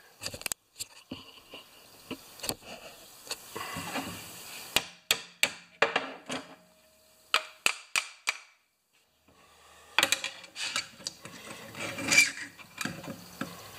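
Scattered metal clinks, knocks and rubbing as a steel lawn-mower thatcher blade and its coil-spring tines are handled and adjusted on a steel workbench, with a quiet lull in the middle.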